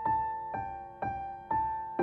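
Soft, slow piano background music: single notes struck about twice a second, each ringing and fading before the next.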